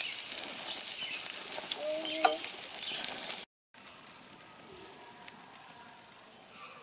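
Meat sizzling and crackling on a camp grill, with a short sharp pitched sound about two seconds in. It cuts off suddenly partway through, giving way to a much quieter forest ambience with faint bird calls.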